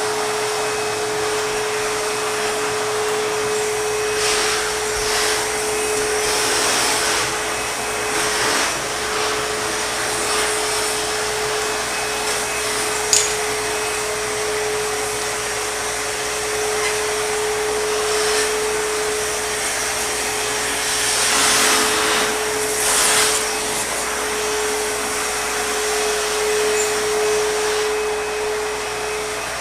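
ProTeam backpack vacuum cleaner running steadily with a constant motor whine over the rush of air. The rushing swells louder a few times for a second or two. There is a single sharp click about 13 seconds in.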